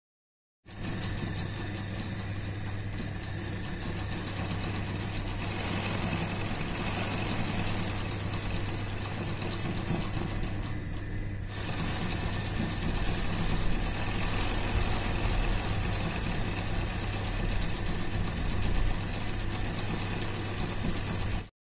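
Sewing machine running steadily at speed over a constant motor hum, its needle stitching a close zigzag (satin) fill on an embroidered flower. The stitching briefly eases about halfway through.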